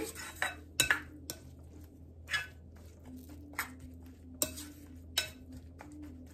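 A clear plastic spoon stirring beaten eggs and chopped vegetables in a bowl, knocking against the bowl with irregular light clicks.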